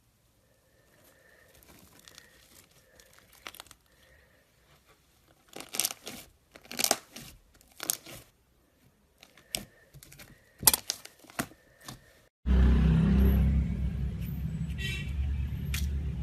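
Slime being pressed and pulled, giving a run of crackling, crinkling snaps about one or two a second. Near the end it cuts suddenly to a loud, steady low rumble.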